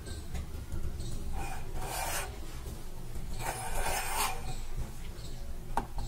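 Two rasping scrapes of about a second each as a steel plate is slid round on a hard surface, then a sharp click near the end as a knife touches the plate.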